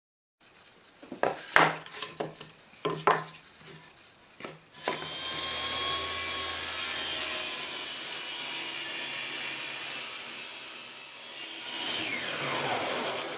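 A few sharp wooden knocks and clatters, then from about five seconds in a table saw runs and rips a wooden board with a steady hum and hiss; its pitch drops near the end.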